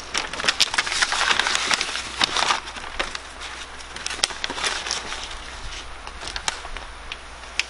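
Aluminum-faced self-adhesive weather-sealant tape being peeled off its backing and pressed down by hand: a crackling, crinkling rustle with scattered sharp ticks, loudest in the first few seconds and then quieter.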